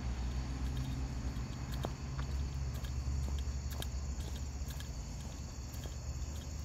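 A steady chorus of crickets over a low, steady rumble, with a few faint ticks.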